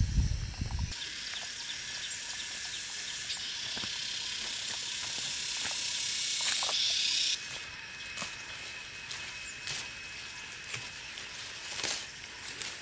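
A high, steady insect chorus that grows louder over several seconds and cuts off suddenly about seven seconds in. After that, quieter outdoor ambience with light snaps and rustles of leaves being plucked by hand.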